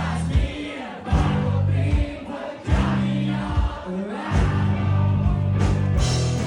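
Loud rock band music with singing over heavy sustained bass chords.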